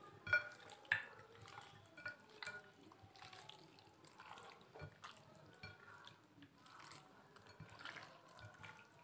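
Raw chicken pieces being squeezed and turned by hand in a glass bowl: faint, irregular wet squelching, with two sharper clicks in the first second.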